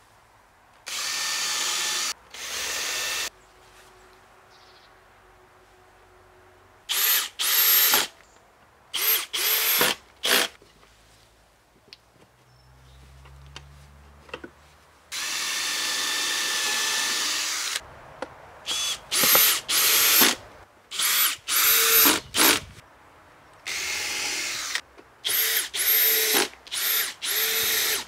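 Cordless drill-driver working into wooden deck planks in stop-start bursts, each spinning up with a rising whine. The longest burst, a couple of seconds, comes about halfway through, followed by a quick run of short bursts.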